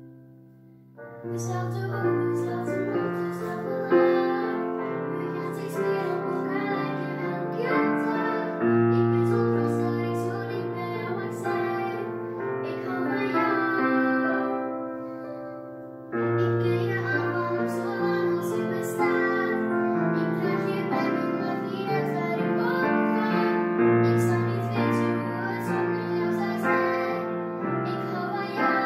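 A girl singing a song in Dutch to piano accompaniment, the music coming in about a second in.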